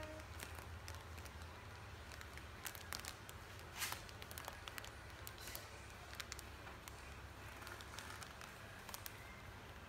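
Faint room tone: a steady low hum with scattered small clicks and crackles, and a louder rustle about four seconds in.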